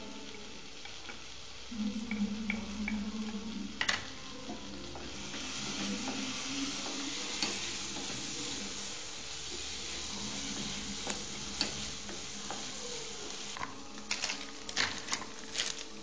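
Food sizzling with a steady hiss, with light clicks from a utensil being stirred or tapped, several of them close together near the end.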